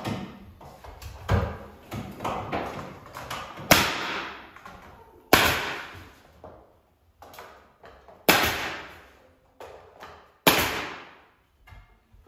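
Pneumatic nail gun firing four sharp shots a couple of seconds apart, nailing crown molding to the wall, each shot followed by a brief hiss of air. Softer knocks come first as the molding is pressed into place.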